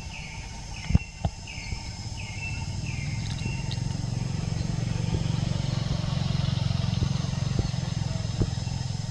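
A motor vehicle engine, most likely a passing motorbike, runs with a steady low hum that grows louder from about two seconds in. Over the first few seconds a short high chirp repeats about twice a second, and there are two sharp clicks about a second in.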